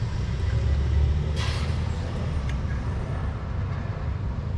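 A steady low rumble. About a second and a half in there is a brief scraping rustle, and a faint click about a second later.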